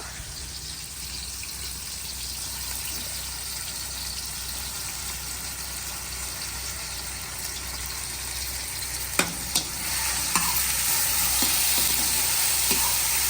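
Onion and garlic sizzling in hot oil in a cooking pot, the sizzle building and getting louder about ten seconds in. A few sharp knocks about nine to ten seconds in.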